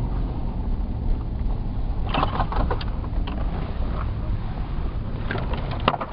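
Four-wheel-drive car driving on a rutted snowy track, heard from inside the cab: a steady low engine and tyre drone, with short bursts of knocks and rattles about two seconds in and again near the end.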